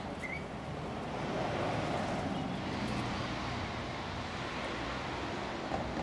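Steady rumble of passing motor traffic, swelling a little and then easing off.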